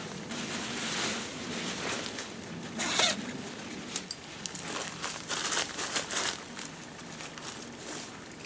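Rustling and crinkling of hammock fabric and mosquito netting being pulled and spread out by hand, in irregular bursts, with a louder swish about three seconds in.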